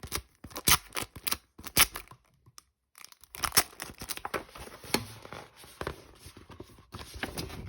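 Poster packaging being handled and torn open: paper crinkling and tearing in irregular sharp bursts, with a brief pause a little over two seconds in.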